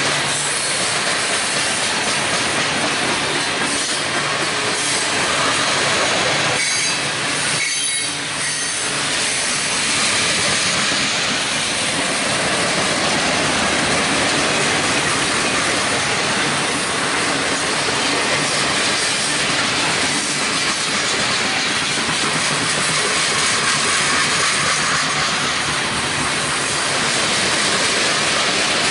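Freight train cars rolling past close by: steady wheel-on-rail noise and clatter, with some high wheel squeal in the first several seconds and a brief dip about eight seconds in.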